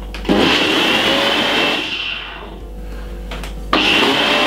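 Ninja blender running in two short pulses, each about a second and a half, with a high motor whine over the churn of fruit chunks, ice and water being blended into juice.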